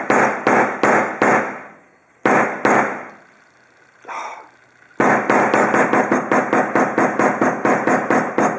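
Hammer blows crushing an HDMI cable to destroy it. A run of sharp strikes about three a second, two more, a pause of a couple of seconds, then a faster flurry of about five strikes a second.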